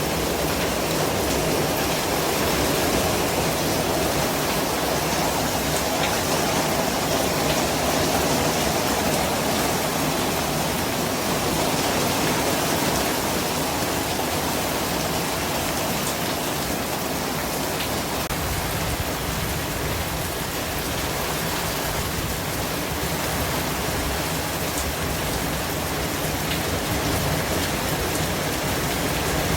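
Steady white-noise hiss, spread evenly from low to high pitches, with a few faint ticks scattered through it.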